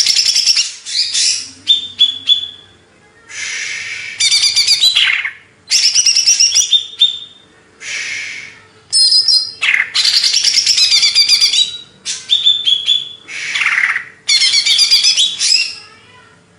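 Cucak ijo (green leafbird) singing loud, rapid, varied phrases of high chirps and trills, in about six bouts of a second or two each with short pauses between.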